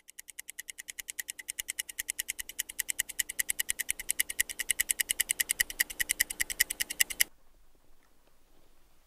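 Smartphone alarm sounding in rapid, evenly spaced high beeps that grow steadily louder, then stop suddenly about seven seconds in as it is switched off.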